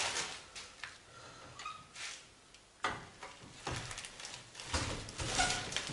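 Hydraulic trolley jack being worked to let the car down: its long handle turned and shifted, giving a sharp metallic click about three seconds in, then several knocks and scrapes.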